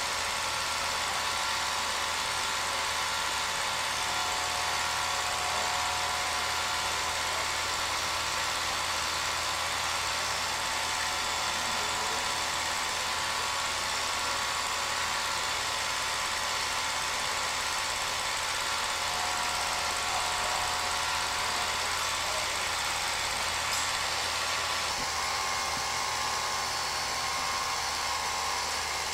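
Film projector running: a steady mechanical whir with constant humming tones and hiss, slightly changing in character near the end.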